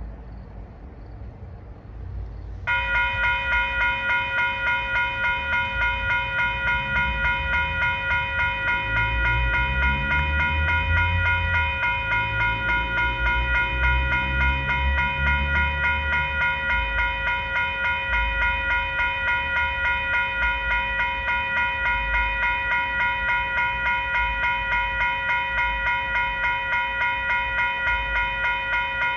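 Nathan K5LA five-chime air horn on a VIA Rail locomotive sounding one long unbroken blast, starting about three seconds in and held, with a fast regular pulsing. A low train rumble swells beneath it in the middle as the train passes.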